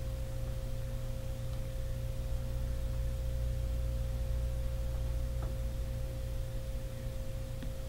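Steady electrical hum with a constant pure tone above it. Two faint light clicks, about five seconds in and near the end, from a thin metal spatula touching a steel idli plate.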